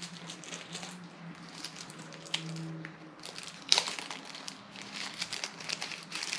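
Thin clear plastic packaging bag crinkling and crackling irregularly as fingers handle and open it, with one sharper crackle a little past the middle.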